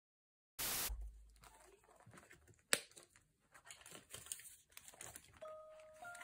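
Paper pages of a six-ring binder journal being handled and turned: rustling and crinkling, with a louder rustle just after the start and a sharp click a little over two seconds in. A simple melody of clear notes starts near the end.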